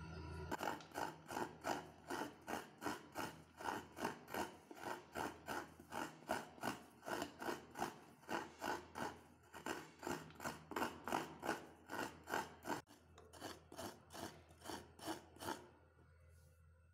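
Fresh coconut being grated out of its half shell: a steady run of rasping scraping strokes, about two to three a second, that grow fainter near the end and then stop.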